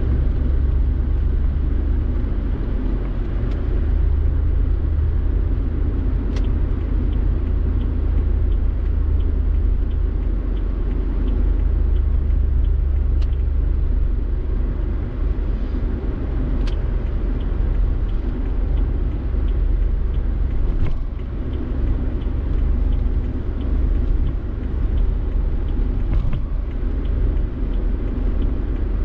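Peugeot 406 driving, a steady low rumble of engine and road noise with a few faint sharp clicks.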